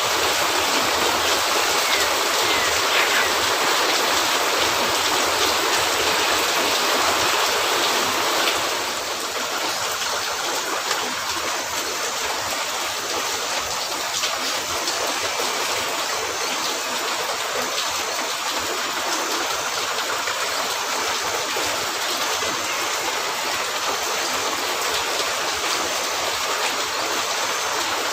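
Steady rain falling, an even rushing hiss that drops a little in level about eight seconds in.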